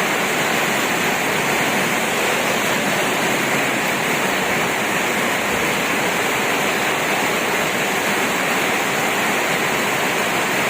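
Heavy tropical rain pouring down steadily, a loud, even rush.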